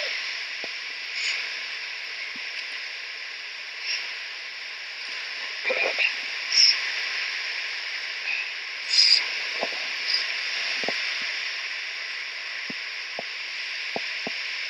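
Steady rushing hiss of a cascading rock waterfall, with a few short soft bursts of noise and some faint ticks near the end.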